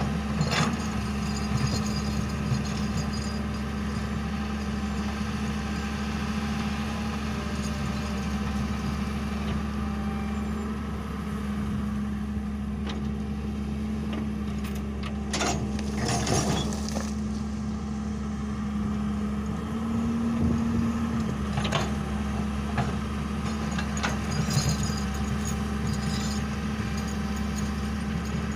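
Diesel engine of an old Hitachi long-reach excavator running steadily with a constant hum, briefly rising in pitch about two-thirds of the way through. A few sharp knocks and scrapes come from the bucket working the rocky soil.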